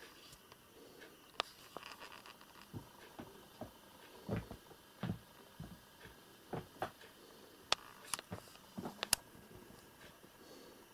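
A kitten and its mother cat play-fighting on a carpet: scattered soft thumps of paws and bodies landing, with a few sharp clicks in the second half.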